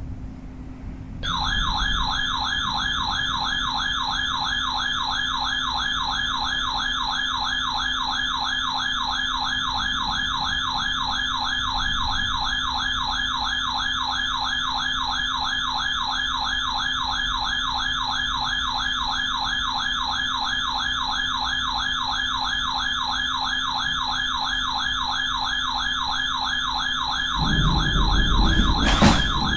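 Electronic siren-style alert tone, a rapid sweeping wail that repeats several times a second, starts about a second in and then holds steady. A low rumble and a few clicks join near the end.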